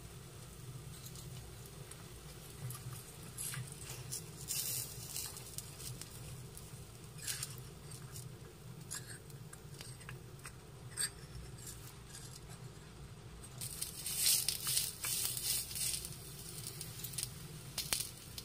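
A small metal spatula scraping and tapping on a miniature metal tawa as it loosens and flips a tiny dosa. The short scrapes come in scattered bursts, with a denser run of scraping about two-thirds of the way through, over a low steady hum.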